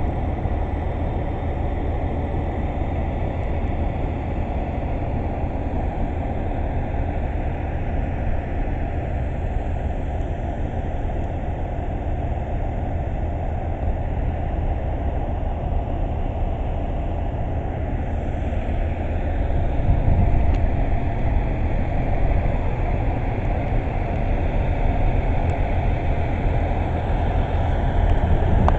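Steady low rumble of a railway station platform with trains standing at it, growing a little louder about two-thirds of the way through.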